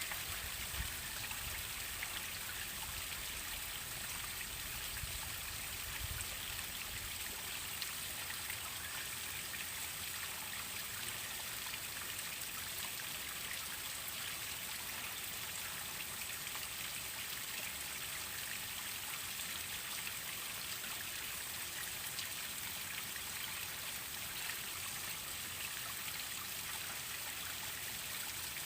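Waterfall water splashing and trickling in a steady, even rush.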